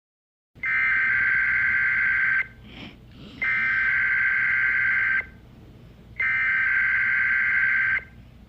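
Emergency Alert System SAME header: three bursts of the harsh two-tone data screech, each just under two seconds, with a short pause between them. This digital header marks the start of an emergency alert broadcast.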